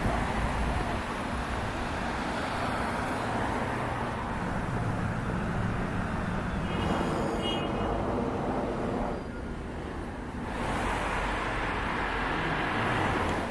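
City street traffic: a steady rush of passing cars, with a brief high-pitched tone about seven seconds in.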